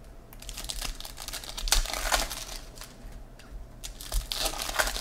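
A trading-card pack's foil wrapper crinkling and tearing as it is opened by hand, with cards clicking and sliding against each other. Short irregular crinkles and clicks, loudest about two seconds in and again near the end.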